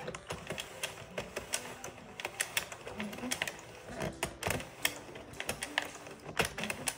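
Light, irregular plastic clicking of a 48-pin circular knitting machine's needles and their latches as they are handled one by one while yarn is cast on around them.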